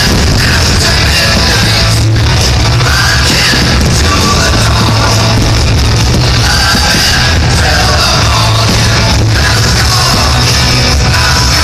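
Loud rock music with a shouted or sung vocal.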